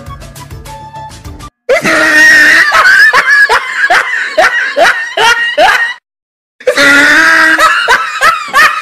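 Background music briefly, then a loud, high-pitched screaming voice in quick up-and-down swoops, with a short break about six seconds in.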